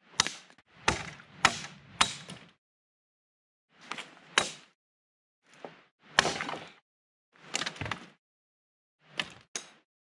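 Dry deadfall branches being broken up for firewood: about a dozen sharp woody cracks and knocks, coming in irregular groups.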